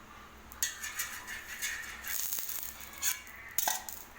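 Oil being spread on a dosa griddle: scattered light scrapes and clicks of a utensil on the pan, with a louder knock near the end.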